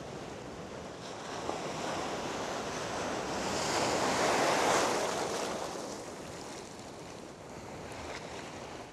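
Surf washing ashore: a wave rushes in, building to its loudest about halfway through and then draining away, over a steady hiss of wind on the microphone.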